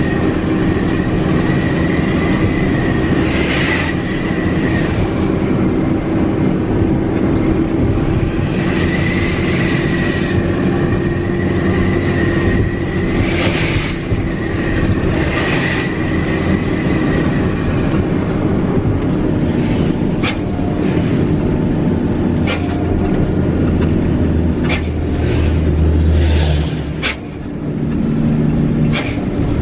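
Mitsubishi Fighter truck's diesel engine running on the road, heard from inside the cab, with a turbocharger whistle wavering high above the engine drone for the first half. Later come sharp rattles and clicks from the cab, and a brief dip in engine sound near the end.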